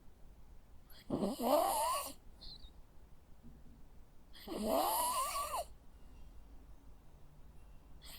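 Jack Russell terrier snoring in its sleep: two snores about three and a half seconds apart, each about a second long with a rising pitch.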